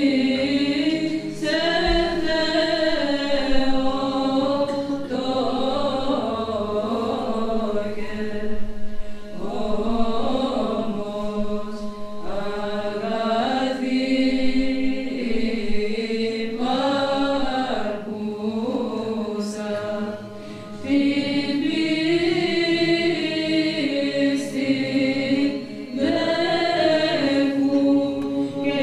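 Women's choir of nuns singing Orthodox church chant. The melody moves over a steady held drone note, with brief breaks in the singing about two-thirds of the way through.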